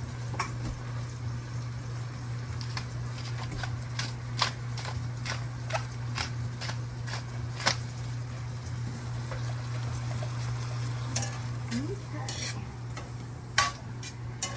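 Canned corn with peppers and onions frying in butter in a pan, sizzling, while a utensil stirs it with frequent scrapes and taps against the pan, a few sharper knocks standing out. A steady low hum runs underneath.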